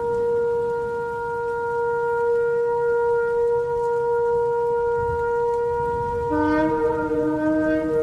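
Shofar sounding one long, steady note. About six seconds in, a second, lower-pitched shofar note joins it, and the two sound together over a low rumble.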